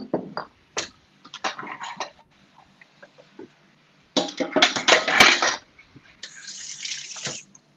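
Kitchen tap running into a stainless steel sink as crockery is rinsed: a few knocks of dishes in the first two seconds, a loud rush of water mixed with clatter around the middle, then a steadier run of water that stops near the end.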